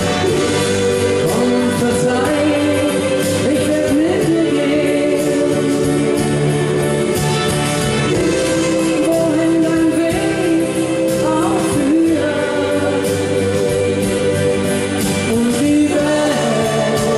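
Live Schlager pop song over a stage PA: a male voice holding long, wavering notes over a full backing arrangement.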